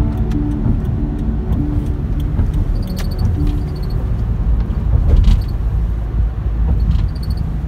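Steady low rumble of road and engine noise heard from inside a moving car, with a couple of short sharp knocks about three and five seconds in. Background music fades out in the first few seconds.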